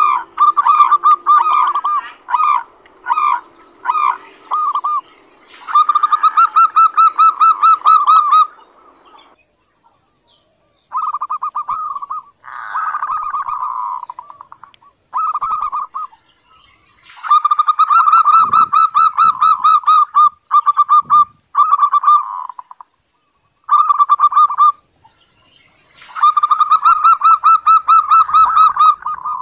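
Zebra dove (perkutut) giving its rattling 'kerot' call: bursts of very rapid pulses at one pitch, short and clipped at first, then longer runs of two to three seconds with brief gaps between them.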